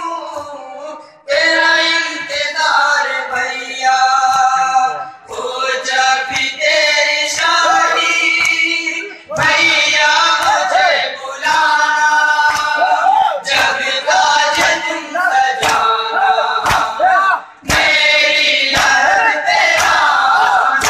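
A crowd of men chanting a noha, the Shia lament, in loud phrases separated by short breaks. Sharp slaps of hands beating on chests (matam) keep a beat under the chant.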